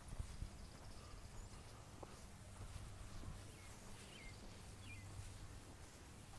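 Quiet outdoor ambience: a low steady hum with a few faint, short bird chirps about four and five seconds in.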